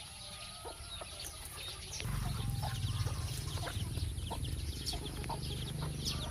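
Chickens clucking in short calls, over many brief high chirps. About two seconds in, a low rumble sets in and stays.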